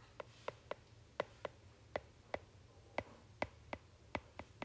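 Stylus tip tapping on an iPad's glass screen during handwriting: a string of sharp, irregular ticks, about three a second.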